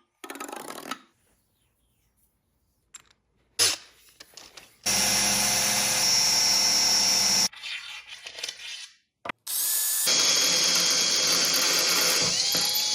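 Woodworking power tool running in two loud steady runs of a few seconds each with a high whine, the first starting about five seconds in and stopping, the second starting about ten seconds in, with short shop clatter before them.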